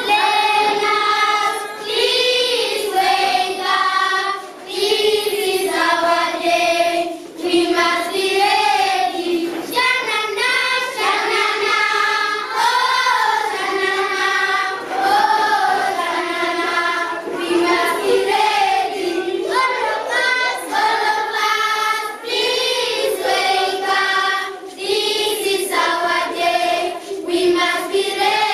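A choir of high voices, children's or women's, singing a flowing melody in phrases of a second or two.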